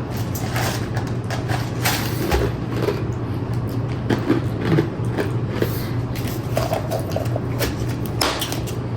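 Street ambience: a steady low hum of traffic or an idling vehicle, with scattered short clicks and knocks.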